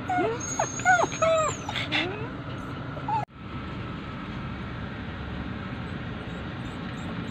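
Poodles whining in short, rising and falling cries, left behind by their owner. About three seconds in the cries break off suddenly, and only a steady background hum remains.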